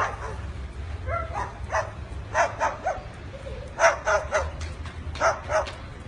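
Short, high, dog-like barks or yips in quick groups of two or three, repeated several times, over a steady low rumble.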